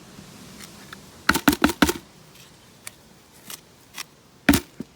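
Metal tool knocking and scraping at iron scale built up in a Lister CS engine's cooling passages: a quick run of four sharp knocks about a second and a half in, one more near the end, and faint ticks between.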